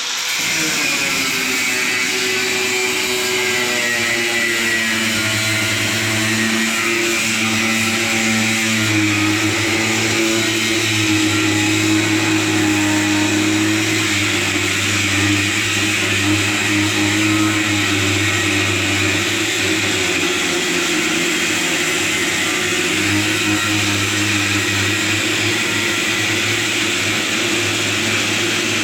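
Cutoff wheel on a grinder running continuously as it cuts through the welds of muffler-tube bars on a go-kart frame, with a steady hiss and a motor note that drifts slightly as the load changes.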